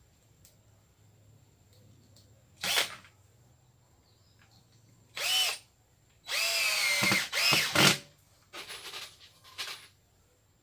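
Power drill driving screws through rubber tyre strips in stop-start bursts. There is a short burst, then a half-second one, then the loudest run of about two seconds, its motor pitch rising and then falling as the trigger is eased. A few brief bursts follow near the end.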